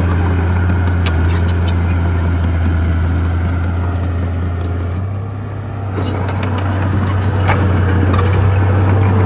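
Shantui SD16 crawler bulldozer's diesel engine running with a steady low drone, with clicking and clanking from its steel tracks. The engine eases off briefly about five seconds in, then picks up again.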